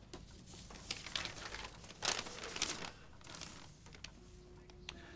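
A sheet of paper rustling as it is picked up and handled, in several short bursts that die away near the end.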